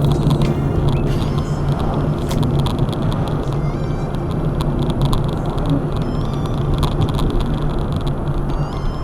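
Car driving at road speed, with a steady drone of engine and tyre noise. Faint light clicks and a few short, faint high chirps sit on top.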